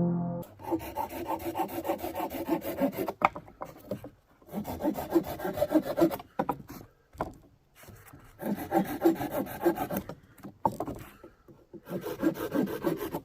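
Hand saw cutting firewood, in four runs of quick back-and-forth strokes with short pauses between.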